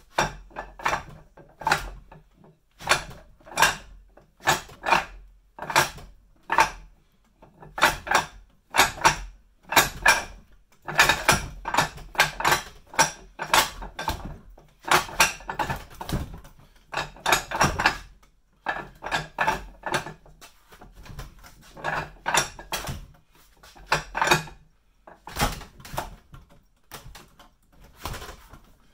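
Wing Chun wooden dummy being worked with the forearms and hands: sharp wooden knocks as the arms strike and circle the dummy's wooden arms, coming singly and in quick clusters through the drill.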